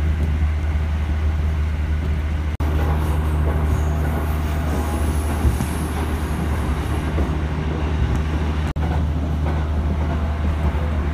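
Running noise of an electric commuter train heard from inside the carriage: a steady low rumble. It is broken twice by very short silent gaps, about two and a half and nine seconds in.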